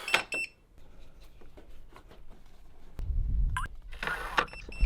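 Fingerprint smart door lock beeping: a short electronic beep just after the start and another near the end. A brief low rumble comes about three seconds in.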